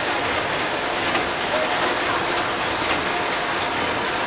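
Automatic washing-powder packaging line running: a steady mechanical hiss and rattle with faint clicks about once a second.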